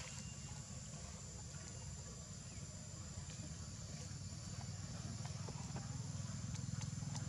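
A small motor engine runs with a low, even rumble, getting louder toward the end as it comes closer. Over it is a thin, steady, high-pitched whine.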